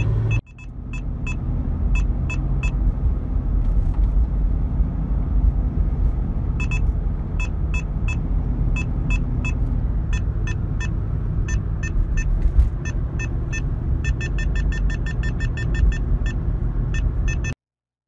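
A police detector's alert beeps sound over the steady rumble of a car on the road: it is warning of a police car's microwave signal. Short high beeps come in small groups at first, a second lower beep joins about halfway, and they speed up to about five a second near the end before cutting off.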